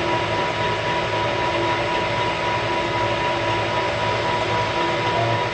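Metal lathe running steadily with a constant whine, taking a light skim cut to clean up the face of a workpiece.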